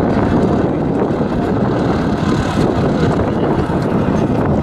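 Steady running noise of a moving passenger train, heard from an open carriage window, with wind buffeting the microphone.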